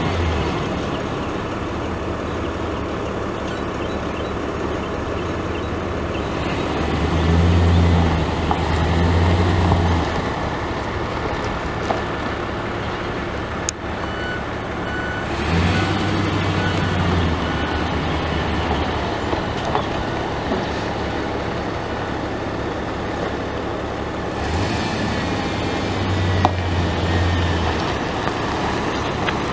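Chevrolet Silverado 3500's 8.1-litre V8 gas engine running steadily at idle. A deeper hum swells for a second or two three times.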